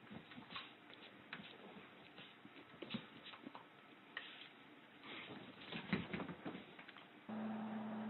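A dog and a cat playfighting on a fabric couch: irregular scuffles, paw thumps and rustling on the cushions, loudest around three and six seconds in. Near the end a steady low hum starts.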